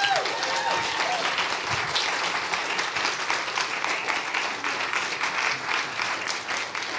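Audience applauding steadily, with a few gliding whoops and cheers in the first second.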